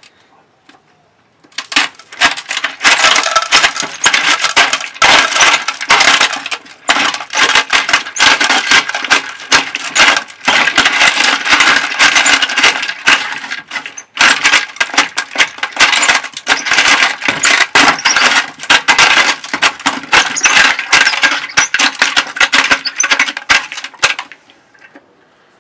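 Hand-cranked ice crusher grinding lumps of coal: a loud, dense crunching and rattling as the crank turns. It starts a couple of seconds in, breaks off briefly about halfway, and stops shortly before the end.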